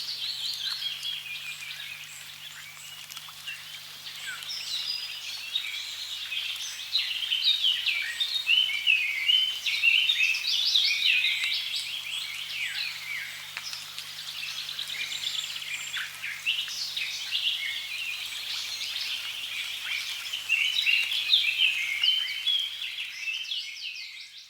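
A dense chorus of many small birds chirping rapidly and overlapping, over a faint steady rush of running water. It all fades out near the end.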